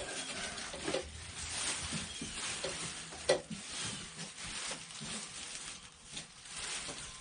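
Styrofoam packing and cardboard being handled in an opened box: irregular rustling and scraping, with one sharp knock about three seconds in.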